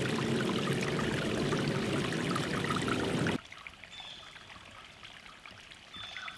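Creek water running and splashing close by, which cuts off abruptly about three seconds in. Quieter ambience follows, with two faint high chirps.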